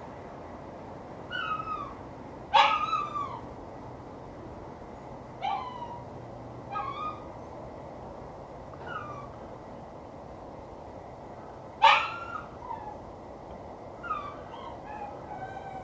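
A dog barking and yelping on and off: short, high calls that fall in pitch, one every second or two, the loudest about two and a half and twelve seconds in, over a steady background hum.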